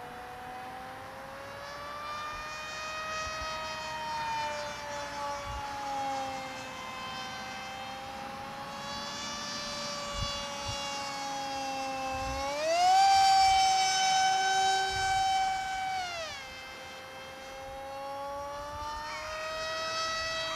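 Multiplex FunJet RC model jet's electric motor and pusher propeller whining in flight, the pitch swaying slowly up and down as it passes overhead. About two-thirds through, the whine jumps higher and louder, holds for a few seconds, then drops back as the throttle is opened and eased off.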